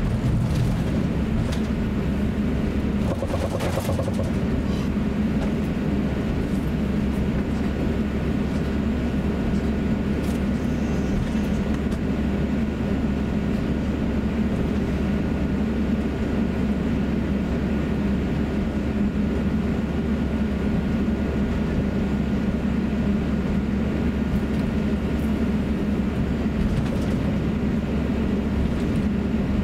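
Cabin noise of an Airbus A350-900 taxiing: a steady low rumble and hum with a faint thin whine above it. A brief knock about three and a half seconds in.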